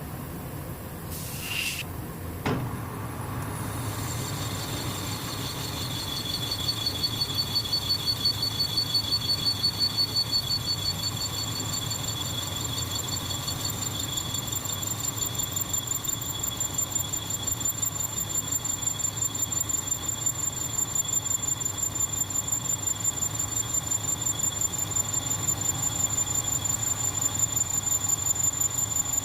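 Metal lathe turning with a high, pulsing squeal as the cutting tool works the steel workpiece, over the machine's steady hum. The squeal starts a few seconds in and grows louder.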